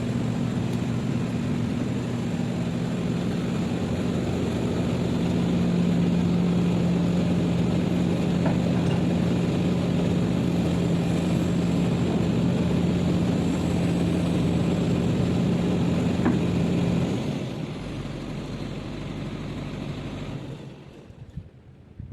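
Heavy-equipment diesel engine running steadily, its pitch stepping up slightly about a quarter of the way through, then stopping abruptly about three-quarters of the way through, leaving a quieter fading noise.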